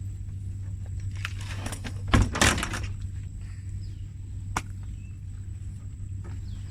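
A short rustling burst with two dull thumps about two seconds in, then a single sharp click, over a steady low hum.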